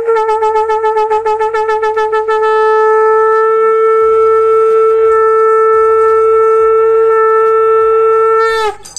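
A turra, a brass folk horn, blown in one long held note. The note wavers rapidly for about the first two seconds, then holds steady, and sags in pitch as it cuts off near the end.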